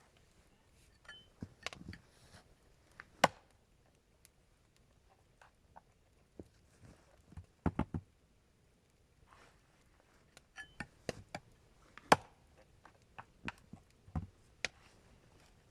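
Irregular knocks and clicks of things being handled, single or in small clusters, with quiet stretches between; the sharpest come about three seconds in and near the twelve-second mark.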